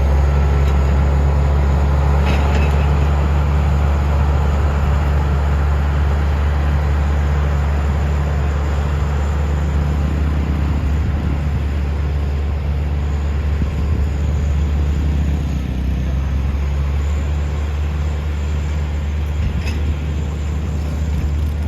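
Bulldozer's diesel engine running with a steady low drone and a rough mechanical rattle over it.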